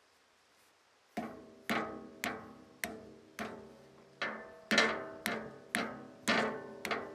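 Background music: a struck or plucked instrument playing single notes about twice a second, starting about a second in, each note ringing and fading before the next.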